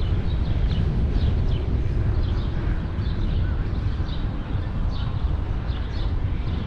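Wind rumbling steadily on the microphone of a moving bicycle, with small birds chirping many times over it.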